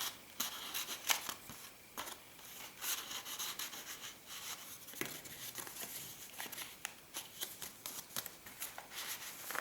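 Paper being handled: the pages and cards of a handmade paper journal rustling, sliding and crinkling in a run of short scrapes and light taps, as a card is worked out of a small envelope.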